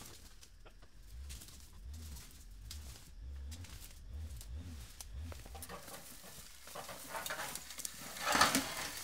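Footsteps swishing through tall weeds and grass, then a loud rustle and rattle a little before the end as a rusty steel frame is heaved up out of the brush.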